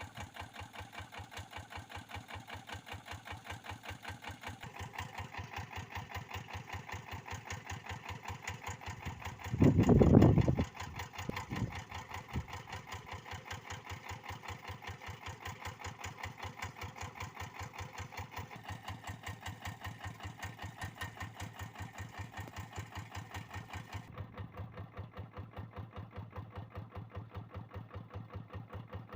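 Kubota RD85DI single-cylinder diesel on a Quick G1000 hand tractor idling, with a steady, rapid beat of firing strokes. About ten seconds in comes a brief loud, low thump-like burst lasting about a second, then two smaller ones.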